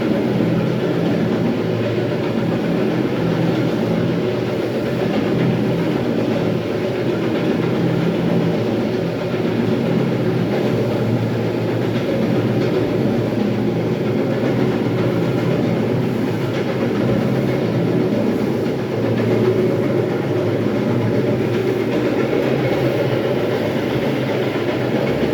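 Electric terrazzo floor grinding and polishing machine running steadily, its grinding heads working over the floor with a continuous, dense mechanical noise.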